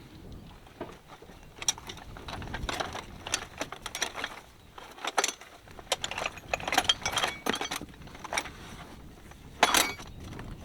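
Metal tools and parts clinking and clattering in a run of short, sharp knocks during car repair work, with the loudest clank near the end.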